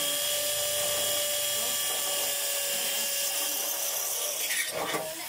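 Electric drill running at a steady speed with a high whine, stopping about four and a half seconds in.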